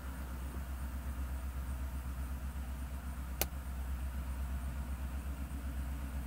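A car engine idling, a steady low rumble heard from inside the cabin. A single sharp click comes about halfway through.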